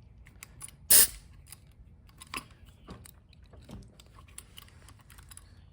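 Scattered clicks and light knocks of a handheld battery-powered air pressure gauge being handled, its power button pressed repeatedly while it fails to come on; the owner suspects its AAA batteries. One sharp, louder click comes about a second in.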